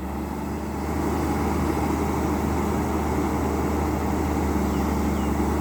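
Volvo EC200B excavator's diesel engine running steadily under working load, picking up slightly about half a second in.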